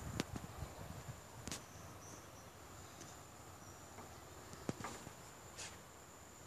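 Insects droning, a steady high-pitched buzz that does not change, with a few light clicks now and then.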